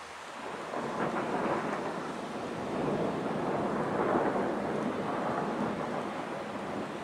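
Thunder from a thunderstorm: a long rumble that swells about a second in, peaks around four seconds in, then eases slightly.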